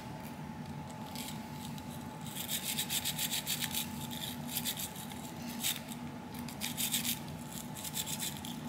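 Narrow-bristled gun cleaning brush scrubbing under the cartridge extractor of a revolver's cylinder in quick scratchy strokes that come in spurts, clearing built-up dirt from beneath the extractor.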